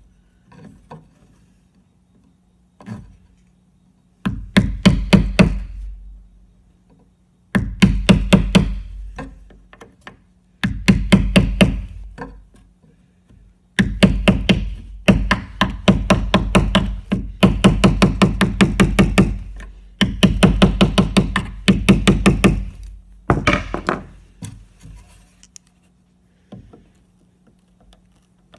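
A hammer tapping a steel nail set on a finishing nail in wood, in quick runs of about five or six taps a second, each run lasting a second or several, with short pauses between; the taps die away to a few faint ones near the end.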